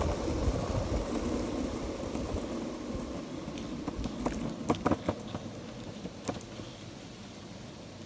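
Longboard wheels rolling over an asphalt path: a steady rumble that slowly quietens toward the end, with a few sharp clicks from about four to five seconds in and once more past six seconds.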